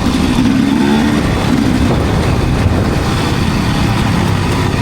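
Enduro dirt bike engine running under throttle, loud and steady.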